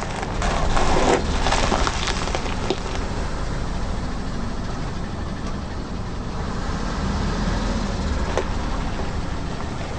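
A car's tyre rolling over and crushing crunchy objects, a dense crackling and snapping over the first two or three seconds, then the car's engine running steadily, with one more sharp snap about eight seconds in.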